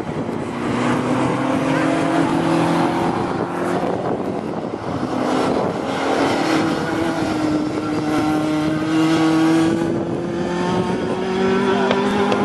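Rally car engines running hard on a race circuit, several engine notes at once. In the second half one engine's note climbs slowly and steadily for several seconds as the car accelerates.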